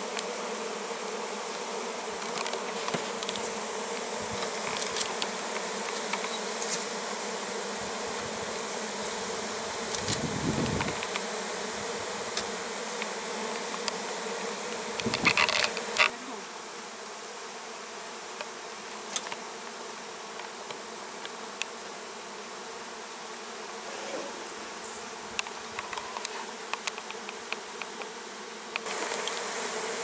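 A mass of honeybees buzzing in a steady hum, many fanning their wings to spread their scent over a newly moved comb frame. A thump and some clicks of hive handling come near the middle, and the hum drops a little quieter just past halfway.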